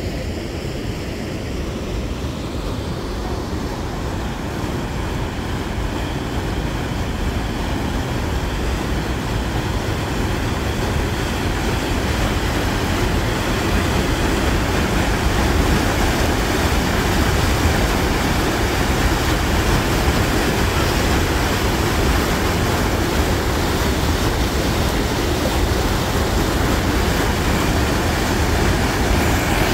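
Water rushing down a stepped concrete cascade channel, a steady noisy rush that grows louder over the first half and then holds.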